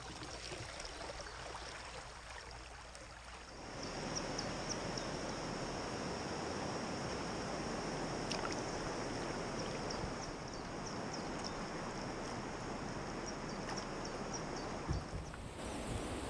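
River water rushing and splashing around a kayak at a weir, getting louder about four seconds in, with small drips and splashes on top. A single thump near the end.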